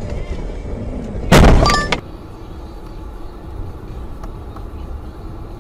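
Car-interior road noise on a snowy road, broken about a second and a half in by a loud crash lasting about half a second: the dash-cam car colliding with an oncoming car that has slid into its lane. Afterwards steady, quieter car-interior driving noise.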